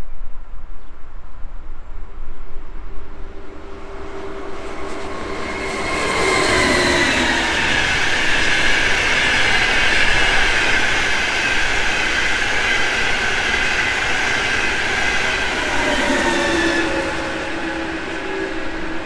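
Train passing through the station: it builds up about four seconds in, runs past loudly with a steady high whine for about ten seconds, and eases off near the end.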